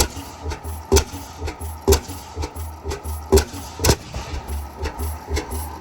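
Slow-running Bovaird & Seyfang oil-field gas engine chugging: sharp exhaust pops at uneven intervals of about a second, over a low rumble.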